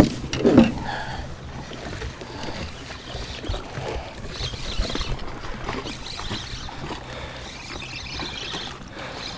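Steady low hum of an electric trolling motor pushing a small bass boat slowly along, with water and boat noise around it. A few knocks near the start.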